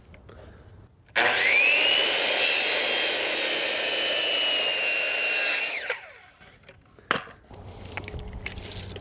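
Corded circular saw starting with a rising whine and crosscutting a 2x8 board for about four and a half seconds, then winding down. A single knock follows about a second later.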